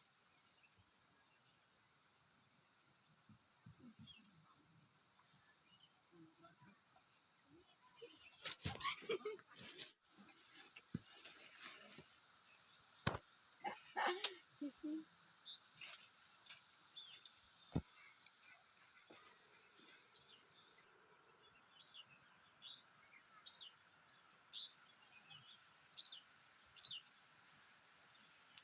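A steady high-pitched insect drone that cuts off about two-thirds of the way through, followed by a run of short high chirps. Two clusters of sharp knocks and rustling, the loudest sounds, break in about a third of the way through and again around halfway.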